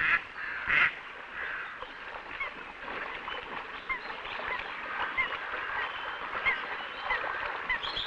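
Mute swan cygnets peeping: short, thin, rising peeps, roughly one a second, over a steady hiss. Two rougher calls come in the first second.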